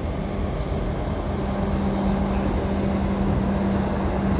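Steady drone of a boat's engine with a constant low hum, under an even rushing noise of water and wind. The hum dips briefly about half a second in, then returns.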